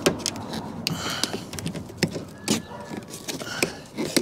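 Thin waterproof door membrane crackling and crinkling as it is peeled away from its sticky mastic, with irregular sharp clicks and taps from the plastic trim tool working at it.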